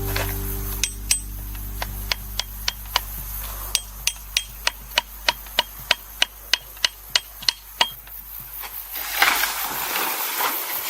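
Hammering: a run of sharp strikes with a faint metallic ring, settling into about three blows a second, then stopping; a noisy rustle follows near the end.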